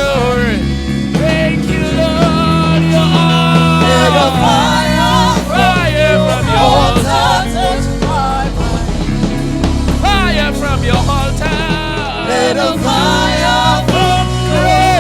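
Live gospel worship music: a band playing sustained low chords while a voice sings a drawn-out, gliding melody.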